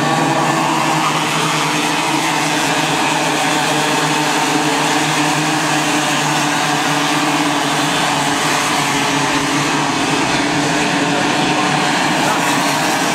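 A pack of Raket two-stroke racing kart engines buzzing together at racing speed, a steady, even drone.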